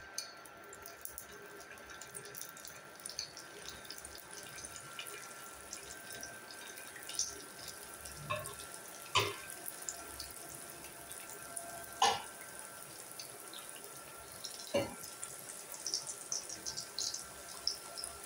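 Gokul pitha (coconut-filled dough dumplings) deep-frying in hot oil in a pan: a light sizzle full of small crackles, with a few louder sharp pops or knocks about nine, twelve and fifteen seconds in.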